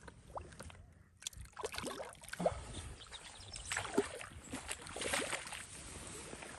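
Irregular water splashing as a hooked trout thrashes at the surface beside a landing net.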